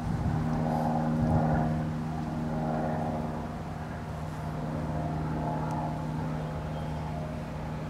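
An engine running steadily: a low, even hum with higher tones above it that waver a little.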